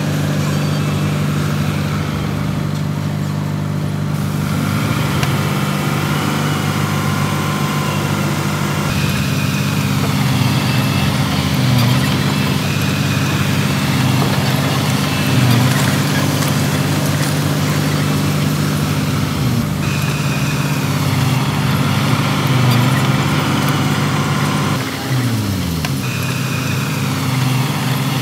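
Heavy diesel engine of earthmoving machinery running steadily, with small swells in level now and then. About 25 seconds in the engine note briefly dips and drops in pitch.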